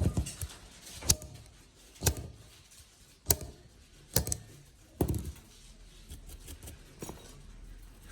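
Sharp taps or knocks of hard objects, about seven of them spaced roughly a second apart, some with a brief ring after.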